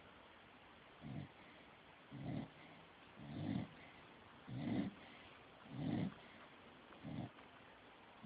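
A sleeping dog snoring, six short snores in a regular rhythm a little over a second apart.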